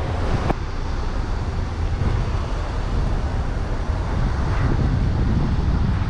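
A car door shuts with a single sharp thud about half a second in, over a steady low rumble.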